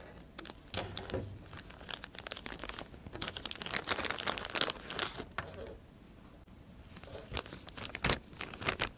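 Plastic VCI corrosion-protection film bag crinkling and rustling as it is handled and opened, busy for the first five seconds or so, then quieter, with a few sharp clicks near the end as the plastic tube inside is handled.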